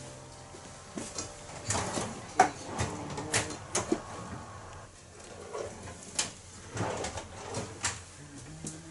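Barber's tools and other small objects clicking and clinking as they are picked up and set down at the workstation counter, a scatter of short, sharp knocks.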